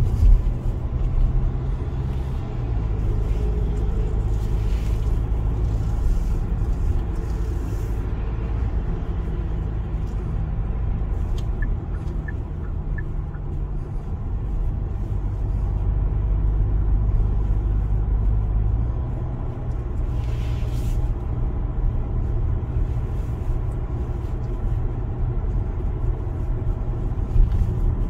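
Steady low rumble of engine and road noise inside the cabin of a car driving along at road speed, with a few faint short high ticks about halfway through.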